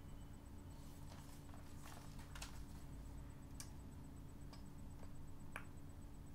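Faint rustling and a few light, scattered clicks as items are handled in a plastic shopping bag, over a steady low hum.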